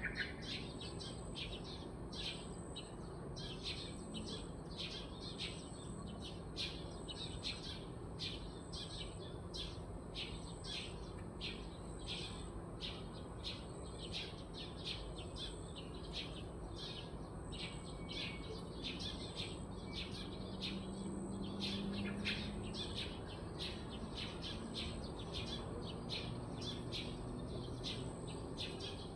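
Many small birds chirping in short, rapid, overlapping calls at dawn, several a second.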